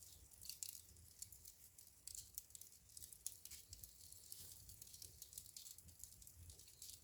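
Wood fire burning in a fireplace, crackling faintly with many quick, irregular snaps and pops over a low rumble.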